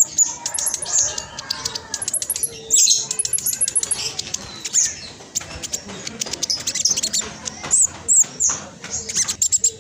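Black sunbird singing a fast, dense, scratchy twittering song of rapid high notes with no real pauses.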